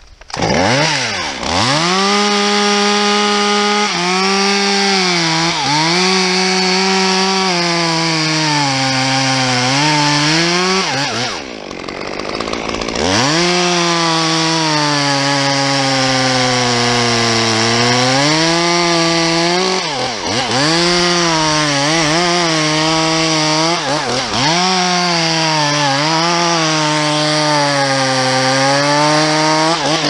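Two-stroke chainsaw revving up about half a second in and cutting through a tree trunk, its engine pitch sagging under load in the cut and picking back up again and again. It eases off to near idle briefly a little before the middle and dips twice more later, each time revving straight back into the cut.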